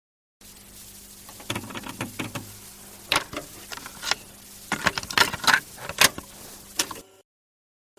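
Irregular sharp clicks and rattles over a faint steady hum, stopping suddenly about seven seconds in.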